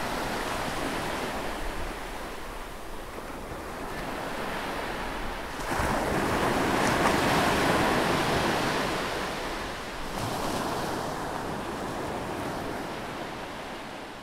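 Steady rushing noise of surf, swelling about six seconds in and easing off toward the end.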